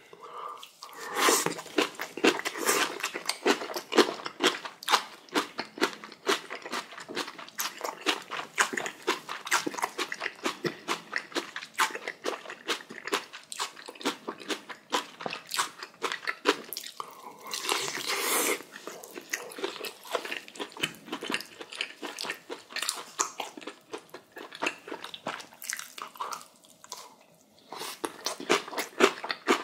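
A person chewing spicy kimchi, a quick steady run of crisp crunching bites. One longer hiss comes about two thirds of the way through.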